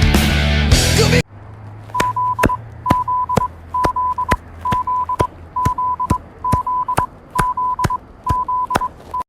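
Loud rock music cuts off about a second in; then an emergency alert tone sounds: a single steady high beep, about half a second long, repeated just under once a second, nine times, each beep framed by sharp clicks.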